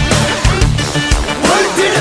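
Loud music with a heavy, steady beat.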